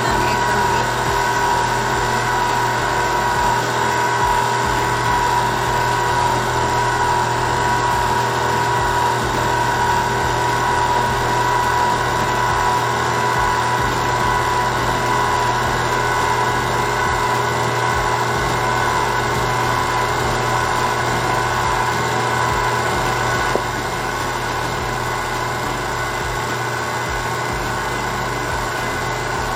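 Electric stand mixer running steadily at speed, its beaters whipping a bowl of whipping cream; a steady motor whine with fixed tones, dropping suddenly to a slightly lower level near the end.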